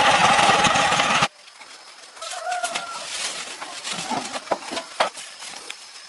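Loud, steady machine noise that cuts off abruptly about a second in. Then a quieter stretch with a short bird call, like a hen clucking, and a few sharp knocks.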